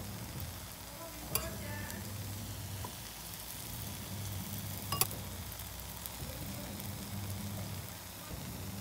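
Bánh khọt (small rice-flour cakes) sizzling steadily in hot oil, with two sharp clinks against the pan, about a second and a half in and again about five seconds in. A low hum runs underneath.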